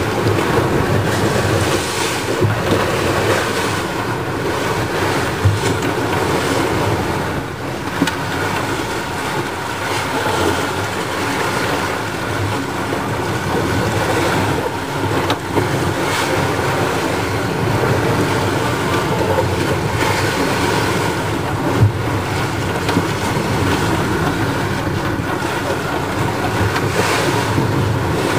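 Sailing trimaran at speed in rough seas: a steady rush of water past the hulls and wind, with a few sharp knocks or slaps of water against the hull and window.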